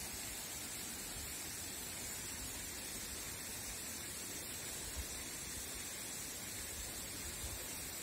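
Steady, even hiss of flowing stream water, with a faint low bump about five seconds in.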